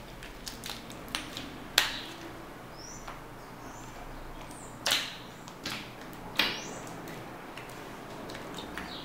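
Sticky white slime being stretched and kneaded by hand while it is still being activated with borax, giving wet smacking pops and clicks as it pulls apart. The three loudest pops come about two, five and six and a half seconds in.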